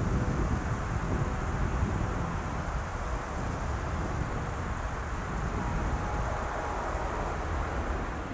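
Jet engines of a departing Boeing 737-800 freighter heard from the ground as a steady low rumble, with a faint steady whine in it.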